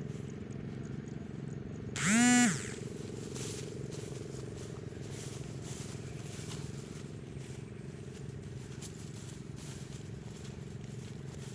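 A small engine running steadily throughout. About two seconds in there is one loud, short pitched call that rises and then falls over about half a second. Faint rustling and clicks come after it.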